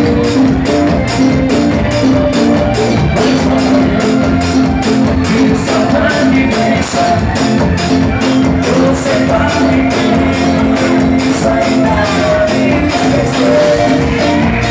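Live band music played loud: a male singer singing through a microphone over electric guitar, bass guitar and drums, with a steady cymbal beat.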